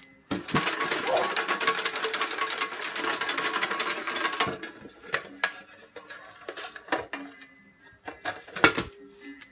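Folded paper raffle slips rattled and shuffled in a container for about four seconds, then a few separate crinkles and clicks as one slip is drawn and opened.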